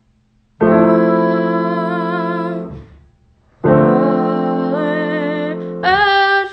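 Two slow piano chords, each held about two seconds and fading gradually, with a woman singing softly with vibrato over them. A louder sung note begins near the end.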